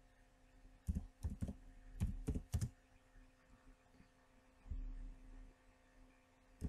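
Computer keyboard keys being typed, about six quick separate key clicks in the first three seconds as a word is entered, then a pause.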